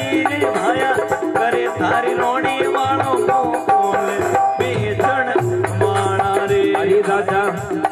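Devotional bhajan music: a wavering melody line over drum and rattle percussion, with one long held note about five seconds in.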